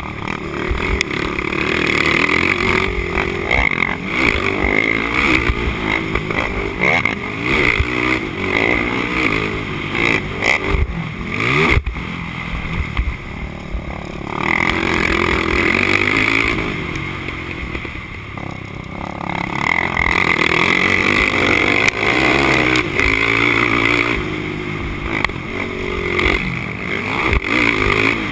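Honda TRX450R quad's single-cylinder four-stroke engine, heard from on board, revving hard and backing off over and over as it is ridden flat out around a dirt motocross track. The run is broken by a few short lifts of the throttle, with rattling from the machine over the rough ground.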